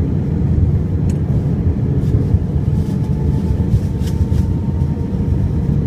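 Steady low cabin rumble inside an Airbus A320 airliner during descent, from its jet engines and the airflow over the fuselage. A faint steady tone sits above the rumble in the second half.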